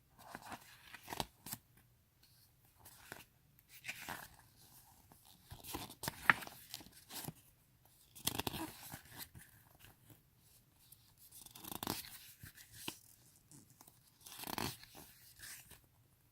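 Pages of an album's photo book being turned and handled: irregular paper swishes and crackles.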